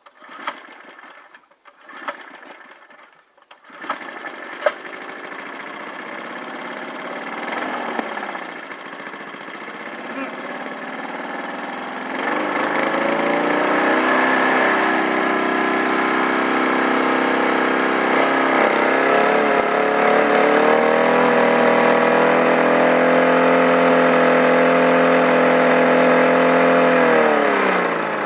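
Petrol lawn mower engine sputtering in a few short bursts, then catching about four seconds in with a sharp bang and running hard. It rises in speed about twelve seconds in and holds at high revs with a wavering, uneven tone, then slows down near the end. The engine is failing: it has been backfiring, and it blows flame back through the air intake.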